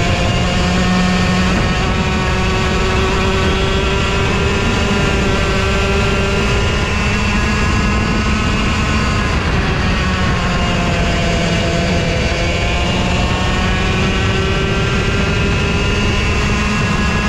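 Racing go-kart engine running at high revs, recorded onboard. The engine note falls about halfway through as the kart slows, then climbs again as it accelerates.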